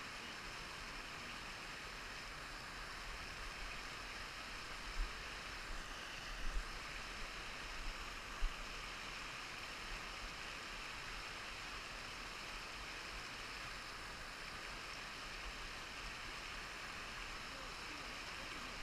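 Steady rushing of a small hill stream, with wind buffeting the microphone in low rumbles and a few light knocks about a third of the way in.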